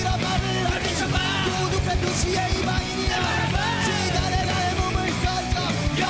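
Punk rock band playing live: electric guitars and bass over a driving drum beat, with male voices singing loudly into microphones.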